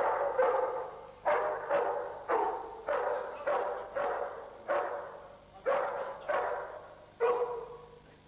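Protection-trained police dog barking repeatedly at a training helper: about a dozen barks, one every half second to a second, each trailing off briefly. The barking stops near the end.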